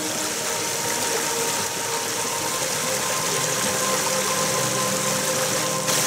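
Stream water running and splashing over rocks, a steady even rush, with faint steady hum-like tones underneath.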